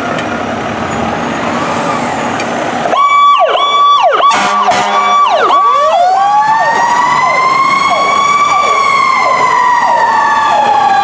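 Fire truck engine and road noise for about three seconds, then sirens. A fast-cycling yelp repeats rapidly, joined about halfway through by a second siren that rises to a long wail and then slowly falls.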